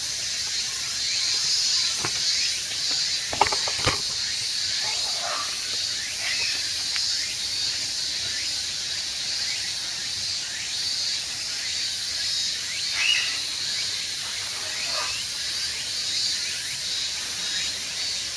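Steady high-pitched hiss with a faint regular pulsing, through which a few short chirps come and go; two sharp clicks sound about three and a half and four seconds in.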